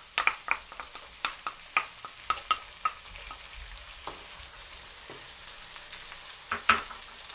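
Diced potatoes, onion and green pepper sizzling steadily in oil in a non-stick frying pan. A wooden spoon clicks and scrapes many times in the first few seconds as tomato purée is scraped from a glass bowl into the pan. Near the end come a few louder knocks as the spoon starts stirring it in.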